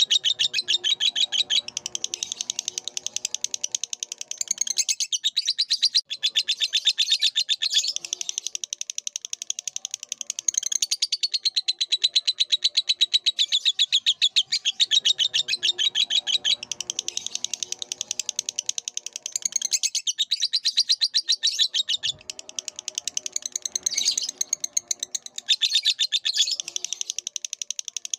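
Lovebird chattering in a long, nearly unbroken stream of rapid, shrill notes, the extended chatter kept as a master song for training other birds.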